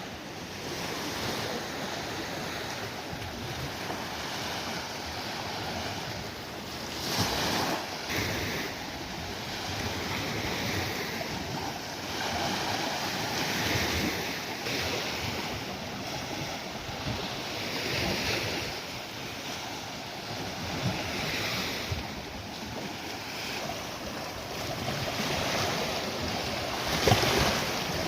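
Sea waves breaking and washing up a beach, rising and falling every few seconds, with wind buffeting the microphone. Two surges stand out, one about seven seconds in and a louder one near the end.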